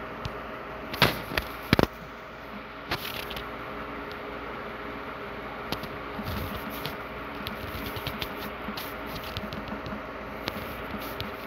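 Light fingertip taps on a phone's touchscreen keyboard while typing, many small clicks from about halfway through, over a steady background hum. A few sharper, louder clicks come between one and two seconds in.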